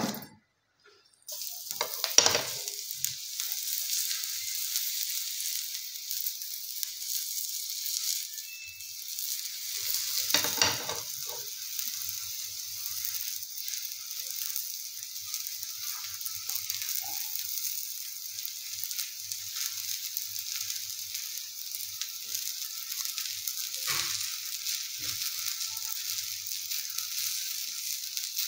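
Palak (spinach) paratha sizzling steadily in a hot frying pan, the hiss starting abruptly about a second in. A few brief knocks stand out over it.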